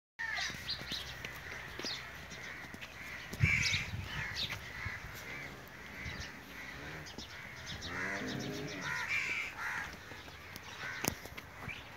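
Birds calling over and over in short repeated calls, with a single thump about three and a half seconds in.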